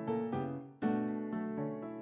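Background music of piano-like keyboard chords, with a new chord struck about a second in and fading away.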